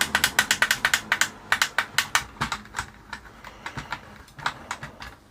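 Rapid clicking of the buttons on a plastic remote-control helicopter transmitter, pressed in quick succession while testing the controls, thinning to scattered clicks after about two and a half seconds.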